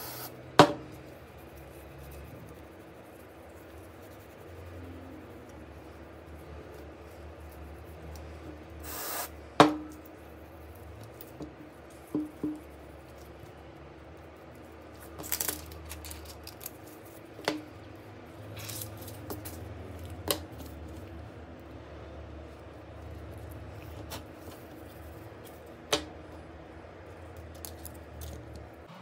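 Small repair tools and phone parts clicking and tapping during a OnePlus 8 phone repair: scattered sharp clicks a few seconds apart, the loudest about a third of the way in just after a short hiss, over a steady low hum.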